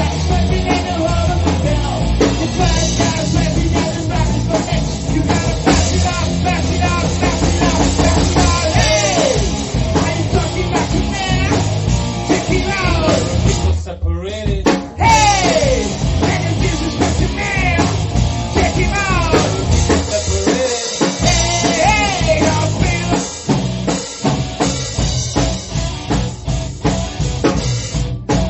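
Rock band playing: a full drum kit with bass drum and snare under electric guitar and bass, with sliding pitched lines running over the top.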